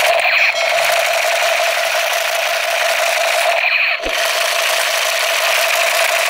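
Battery-powered light-up toy blaster guns sounding their electronic firing effect through a small speaker: a continuous buzzing, rattling loop over a steady tone, repeating every few seconds. There is a click about four seconds in.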